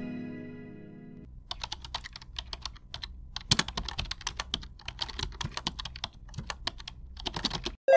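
Rapid, irregular sharp clicking and tapping, several clicks a second, which stops abruptly near the end; at the start the last notes of a plucked harp-like run fade out.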